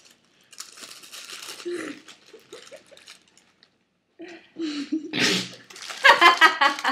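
Paper burger wrappers rustling and crinkling as they are torn open, then a loud burst of voice near the end.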